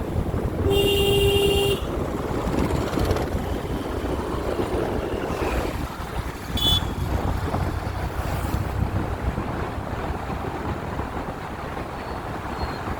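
A vehicle horn sounds once, held for about a second near the start, over a steady low rumble of passing traffic. A short, high beep follows about halfway through.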